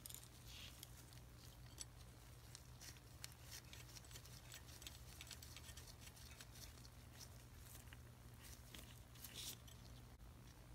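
Faint clicks and rustles of a nitrile-gloved hand fitting a copper pipe's brass union nut onto a brass fitting, over a low steady hum.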